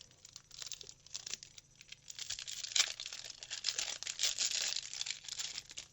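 Foil Pokémon booster pack wrapper being torn open and crinkled: a few light crackles at first, then dense, loud crinkling from about two seconds in that stops suddenly at the end.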